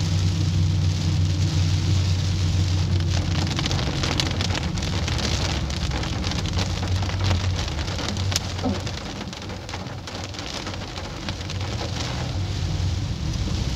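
Rain falling on a car's roof and windshield, heard from inside the cabin as a dense spatter of drops over the car's low steady hum. It eases a little past the middle.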